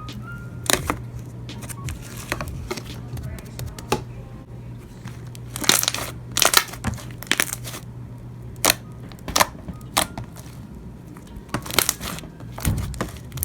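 Handmade slime being squeezed and poked, giving irregular sticky clicks and pops, a few to several seconds apart.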